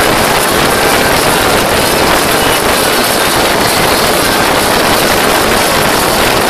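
Motorboat under way at speed: a steady, loud rush of wind on the microphone blended with the boat's motor and water against the hull.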